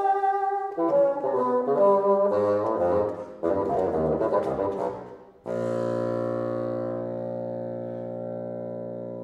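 Bassoon playing fast runs of changing notes that reach down into its low register. About five seconds in the playing cuts off and a steady electronic drone of many layered tones takes over, slowly getting quieter.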